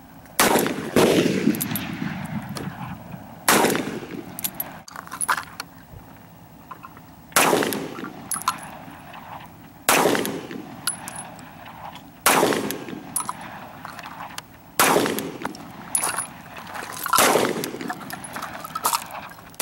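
Gunshots: about seven loud shots fired a couple of seconds apart, each trailing a long echo, with fainter shots from other shooters at the range in between.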